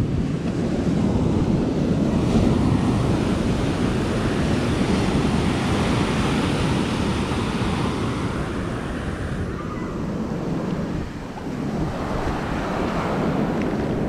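Ocean surf breaking and washing up the beach, a continuous rush that swells over the first few seconds, dips a little past the middle and builds again near the end, with wind buffeting the microphone.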